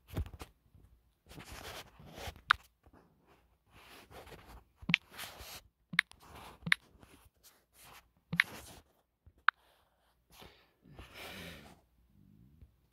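Irregular sharp taps and soft rustling from a smartphone being handled, fingertips tapping its touchscreen keyboard.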